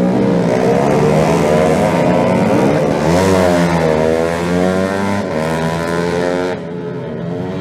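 Racing motorcycle engines revving hard as the bikes pass, pitch repeatedly climbing and dropping with gear changes, with a sharp dip and rise about three seconds in. The engines become quieter after about six and a half seconds.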